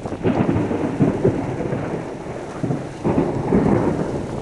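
Thunder rumbling over a heavy downpour of rain. Two loud swells, one at the start and one about three seconds in.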